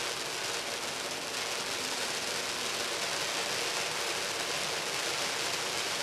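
Smokeless stage waterfall firework burning, a steady even hiss as it pours a curtain of sparks.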